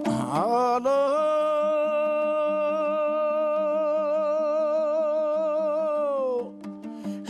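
Kazakh zhyr singer rising into one long held note with a wide vibrato, which slides down and stops about six and a half seconds in. Strummed plucked-string accompaniment starts again near the end.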